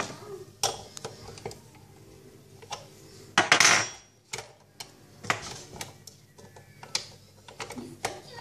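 Scattered clicks and knocks of plastic and metal parts being handled inside a dismantled Krups EA8000-series espresso machine, with a louder, half-second scrape about three and a half seconds in.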